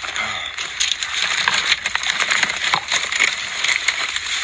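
Dry brush and twigs crackling and snapping underfoot as someone pushes on foot through thick, dry bushes, in a dense, irregular run of crunches.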